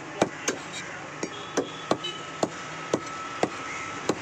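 Heavy curved butcher's cleaver chopping goat meat on a wooden chopping block: a steady run of sharp chops, about two a second.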